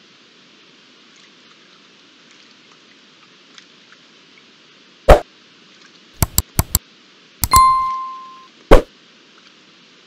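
Sharp knocks and a metallic clang from the metal water trough as a common blackbird bathes in it. A knock comes about halfway through, then four quick clicks, then a clang that rings on for about a second, then one last knock, all over a faint steady hiss.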